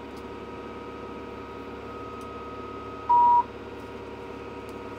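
Steady drone of the tractor pulling the hay rake. A single short electronic beep sounds about three seconds in.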